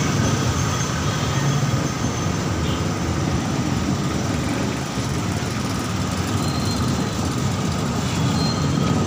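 Busy street traffic: motorcycle tricycles and cars running close by in a steady mixed rumble. Two brief high-pitched tones sound near the end.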